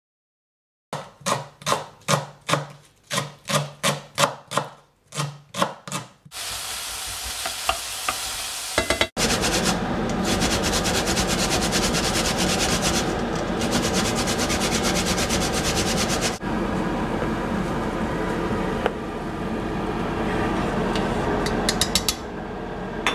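About a dozen short separate sounds in the first five seconds, then a long steady run of scraping strokes from food being grated on a flat metal hand grater over a stainless pot. A wooden spoon stirs in the pot near the end.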